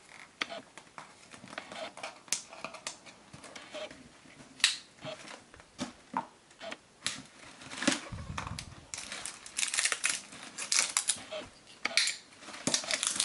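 Packing paper and boxes being handled while unpacking: irregular rustling and crinkling with small clicks and knocks, busier in the last few seconds.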